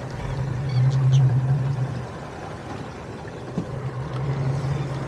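Boat motor running low and steady, swelling and easing off, under the wash of water along the hull, with a couple of light clicks about a second in.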